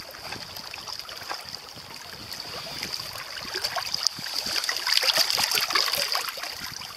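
Shallow lake water splashing and trickling around shoreline rocks as a hand-held brown trout is let go into it. The splashing grows louder past the middle.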